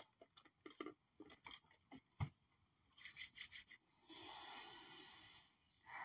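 Faint tabletop handling sounds: scattered light clicks and a sharper tap about two seconds in, a quick run of taps a second later, then a soft rubbing hiss from about four seconds in as a hand moves over the cloth and the tarot cards.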